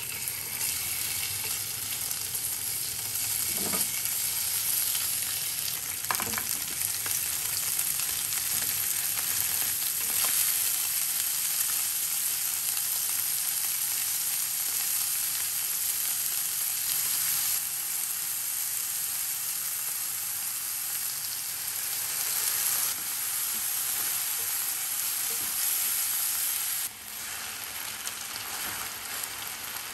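Salmon pieces and mushrooms sizzling steadily in hot oil in a nonstick frying pan, with a few light clicks. The sizzle drops suddenly near the end.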